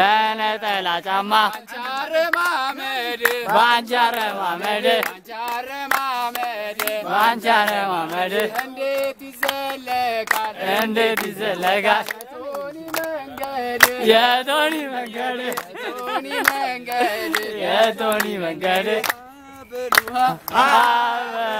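A group of men chanting a song together in a sustained, wavering melody, with hand claps.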